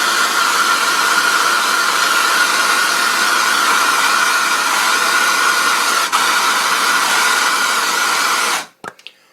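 Handheld hot-air blower running steadily with a high whine over its rushing air, melting heat-shrink over freshly crimped wire terminals. It switches off abruptly near the end.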